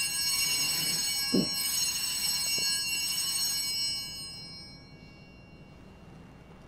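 Altar bells ringing at the elevation of the consecrated host during Mass, a bright many-toned jingle that fades out about four to five seconds in.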